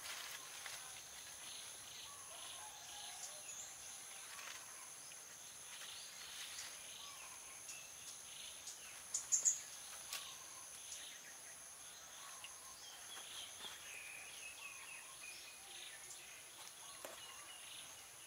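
Quiet outdoor ambience of insects trilling steadily at two high pitches, with scattered soft bird chirps. About nine seconds in, a few short, sharp high chirps stand out as the loudest sounds.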